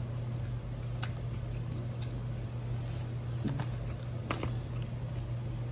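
Light clicks and scrapes of a box and its packaging being handled and opened, a handful of separate clicks over a steady low hum.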